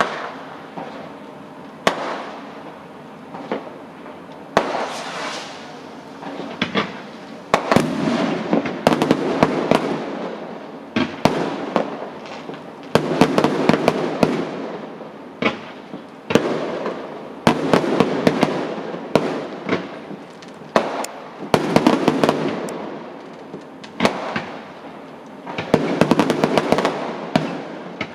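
Fireworks going off: sharp bangs followed by dense bursts of crackling, coming in overlapping waves every few seconds.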